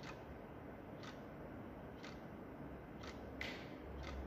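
Quartz wall clock ticking, one sharp tick a second. About three and a half seconds in comes a brighter, louder click.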